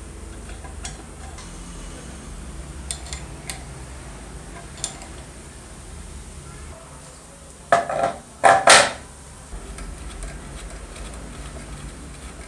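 Light metallic clinks and taps of a wrench, bolt and flange on a metal cutoff saw's blade mount during reassembly. A little past halfway there is a louder burst of metal rattling and scraping, in two parts, lasting about a second.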